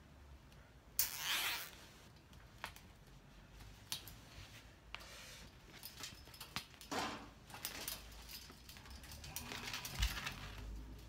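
Metal wire lattice panels clinking and rattling as they are handled and fastened with cable ties: a series of sharp clicks and short scraping rasps, with a thump about ten seconds in.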